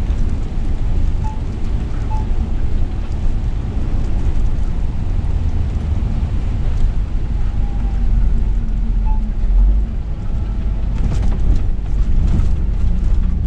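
Scania S500 truck driving on a wet road, heard inside the cab: a steady low engine and road drone with rain and tyre hiss. A short run of sharp clicks comes about eleven seconds in.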